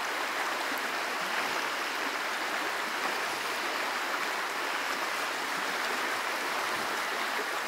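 Steady rushing of a small river's current flowing over stones.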